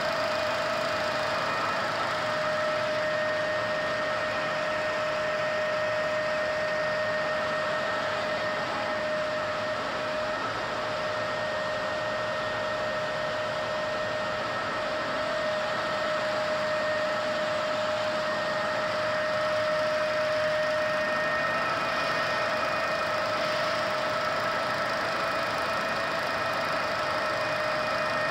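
GIDUE MASTER Combat flexo label press running: a steady mechanical hum and hiss with a high, even whine of several tones. One of the higher tones drops out about three quarters of the way through.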